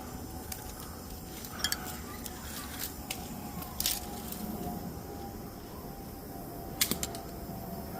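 A few short, sharp clicks and clacks, about a second and a half in, near four seconds, and a double one near seven seconds, from a ratchet strap being taken apart and worked loose from a bundle of dry sticks.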